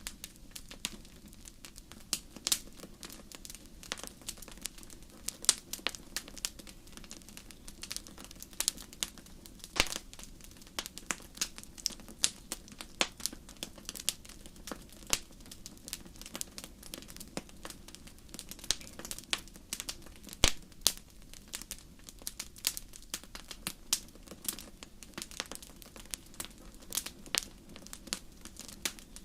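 Wood fire crackling, with irregular snaps and pops, a few sharper ones standing out, over a low steady rumble.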